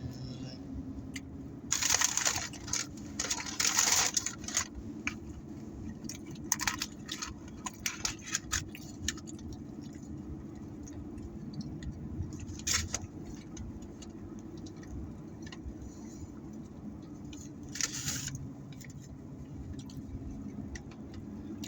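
Food packaging crinkling and rustling as it is handled, in loud bursts about two and four seconds in, then scattered clicks and two shorter bursts later, over the steady low hum of a car's interior.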